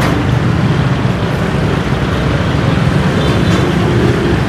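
Loud, steady low rumble of machinery-like background noise with no break.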